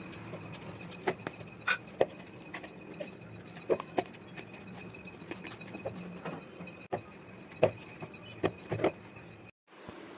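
Metal spoon knocking and scraping in a plastic mixing bowl and hands working soft bread dough: irregular sharp clicks and taps over a faint steady high whine.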